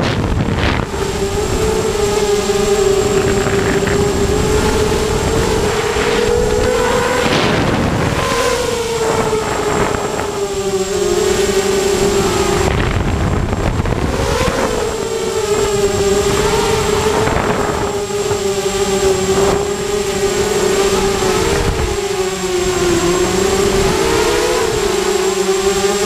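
Brushless motors and propellers of a hexacopter running in flight, heard close up from a camera on the frame. It is a steady, buzzing whine whose pitch wavers slightly with throttle, with occasional short rushes of air noise.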